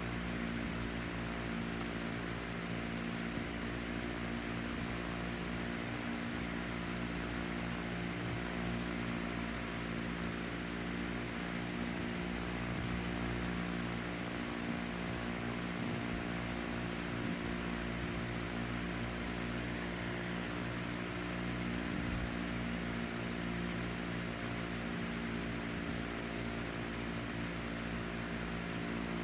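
1967 Hunter CG16 16-inch commercial-grade table fan running: a steady rush of air over an electric motor hum made of several steady tones.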